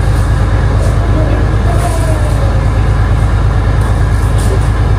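A heavy engine running steadily, a loud low rumble with an even, fast throb.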